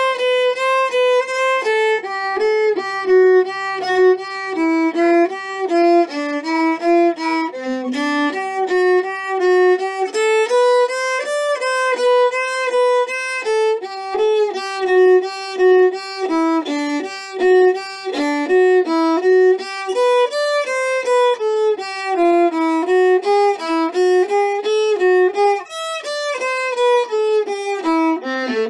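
Solo viola playing an etude: one unbroken line of bowed notes moving up and down in the instrument's middle range.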